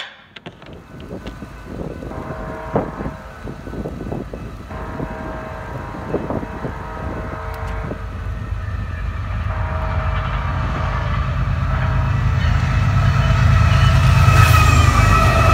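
Diesel freight locomotive horn sounding long blasts as the train approaches a grade crossing, over a rumble of engines and wheels that grows louder. Near the end the horn's pitch drops as the lead locomotive passes close by.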